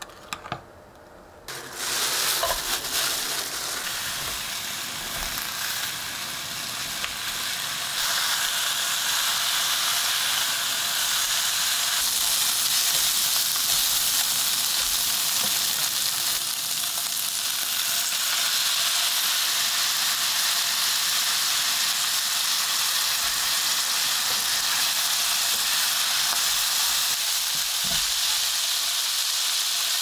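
Thinly sliced pork belly sizzling as it fries in a frying pan: a steady hiss that starts about two seconds in.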